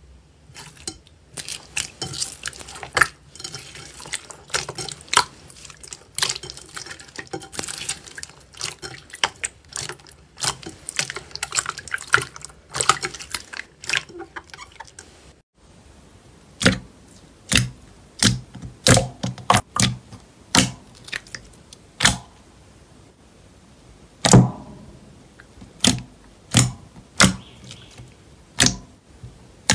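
Clear slime mixed with foam beads being poked and pressed by hand, giving dense crackling with small wet pops. After a cut about halfway through, a thick slime is folded and squeezed in a glass bowl, giving loud separate pops about once a second.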